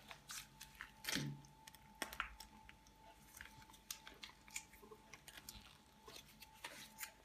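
Quiet crinkling and crackling of a plastic jam sachet being squeezed and wrung by hand, in scattered small crackles.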